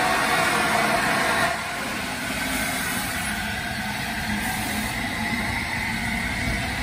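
LNER A4 steam locomotive hissing steam at low speed. The hiss is loud at first, drops suddenly about one and a half seconds in, then carries on as a steadier, quieter hiss with a low rumble.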